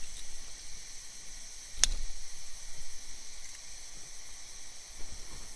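Steady hiss of background noise, with one sharp click about two seconds in from a Ganzo folding knife being handled.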